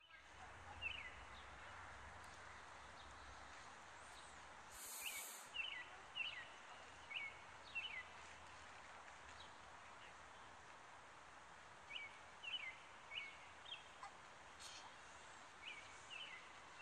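A small bird giving short, falling chirps in runs of four or five with pauses between, faint over steady outdoor background noise. A brief hiss comes about five seconds in.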